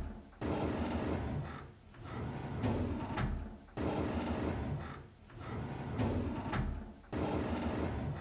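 A wooden drawer sliding open with a rumbling, scraping run on its runners, repeated in a loop about every three seconds.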